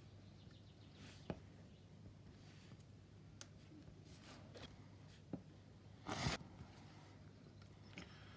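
Quiet handling sounds of a hobby knife cutting small decals from a paper decal sheet on a cutting mat: a few scattered soft clicks of the blade, and one brief louder scratch about two-thirds of the way through, over a faint low hum.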